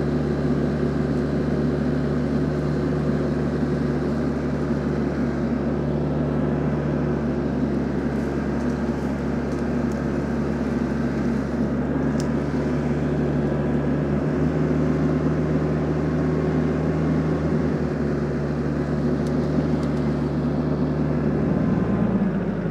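TYM T474 compact tractor's diesel engine running steadily under load while the tractor works through brush with a front-loader grapple rake.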